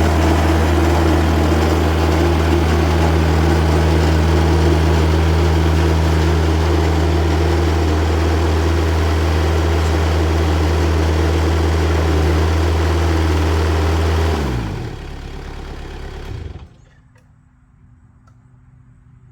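Engine of a TimberKing bandsaw sawmill running steadily. About 14 s in it drops in level and winds down with falling pitch, then cuts off about two seconds later as the mill is shut down.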